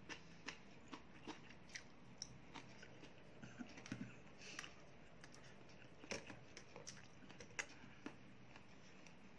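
Quiet eating: irregular light clicks and taps of a plastic fork against a plastic takeaway food tray, with soft chewing of leafy greens, over a near-silent room.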